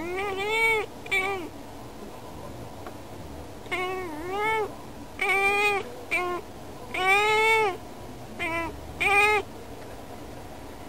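Calico cat meowing in a run of about eight short meows, each under a second, in clusters: two at the start, then a burst of six from about four to nine and a half seconds in. She is calling at birds she sees outside the window.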